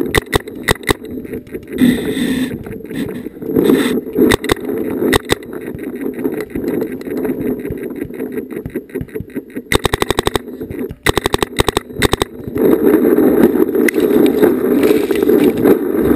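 Paintball markers firing: scattered single shots, then two rapid, evenly spaced strings of shots about ten seconds in, over a steady rushing noise that grows louder near the end.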